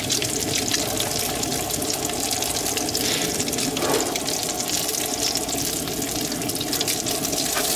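Salmon patties sizzling in hot grease in a cast-iron skillet, a steady crackling sizzle.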